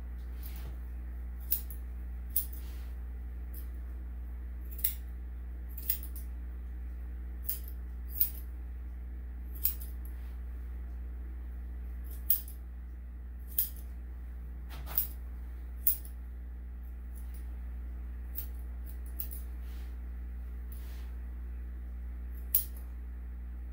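Grooming scissors snipping through a dog's coat: about a dozen sharp single snips at irregular intervals, over a steady low hum.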